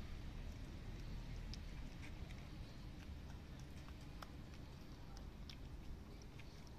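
Cats chewing and lapping wet chicken food from a plate: faint, irregular wet clicks and smacks over a low steady background rumble.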